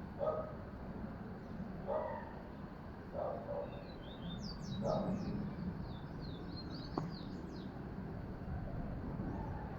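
Small birds chirping in quick bursts of short high notes, busiest in the middle, over a steady low hum, with four short lower calls spaced about a second and a half apart in the first half.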